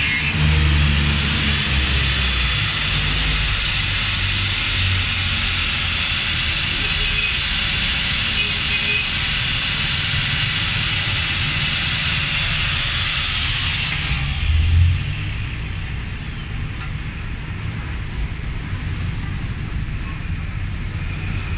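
Electric angle grinder grinding a stainless-steel pipe: a loud, steady high hiss that stops about two-thirds of the way through, followed by a brief thump and a lower steady background noise.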